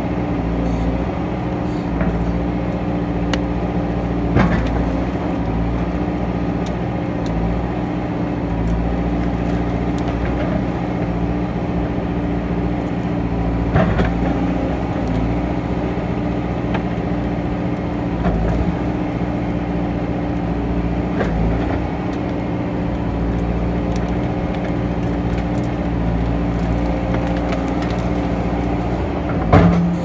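Backhoe's diesel engine running steadily as its bucket digs into a beaver lodge, with a few sharp cracks and knocks of the bucket breaking into the packed sticks and mud.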